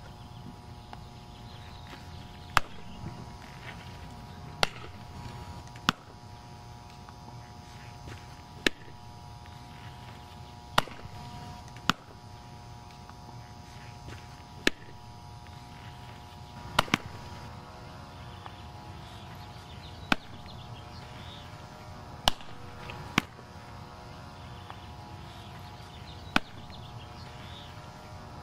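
Softballs smacking into a catcher's leather mitt: about a dozen sharp single pops, one every two seconds or so, with two catches close together in the middle.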